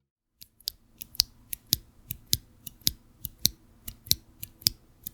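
A single KTT Monochrome Onyx tactile switch in its polycarbonate housing, pressed and released over and over close to the microphone: a pair of sharp, high clicks about every 0.6 seconds, with metallic noises that the reviewer thinks come from the switch's leaf.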